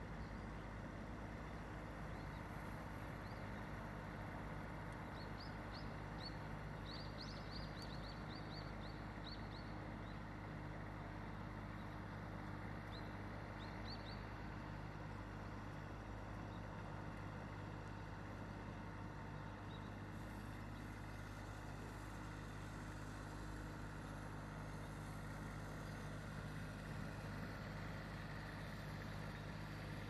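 Steady low engine hum. A small bird gives a quick run of short high chirps from about five to ten seconds in, and a few more around fourteen seconds.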